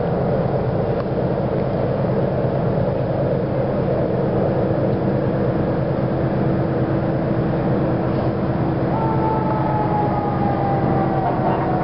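Diesel locomotive engine running steadily with a deep, even rumble. About nine seconds in, a thin high tone joins and slides slowly down in pitch.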